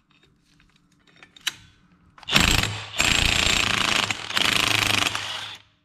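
Cordless impact wrench hammering on a 27 mm clutch nut to break it loose and spin it off. The wrench comes in a little over two seconds in and hammers in three runs with short pauses, about three seconds in all.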